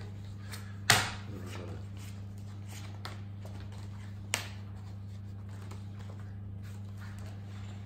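Playing cards slapped down onto a wooden table in a Mau-Mau card game: one sharp slap about a second in, a lighter one at about four seconds, and a faint tick between. A steady low electrical hum runs underneath.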